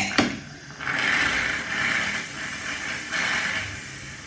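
Steam wand of a Klarstein Passionata Rossa 20 espresso machine hissing, with a sharp click as the control knob is turned about a quarter second in. The steam then comes in two weaker surges that die away.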